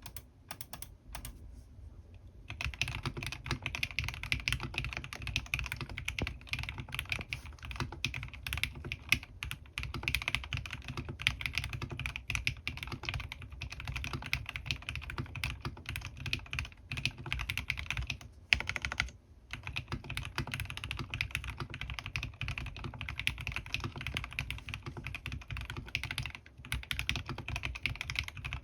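Mechanical keyboard with lubed Gateron North Pole linear switches and PBT keycaps being typed on. A few single keystrokes come first, then steady fast typing from about two and a half seconds in, with a brief pause about two-thirds of the way through.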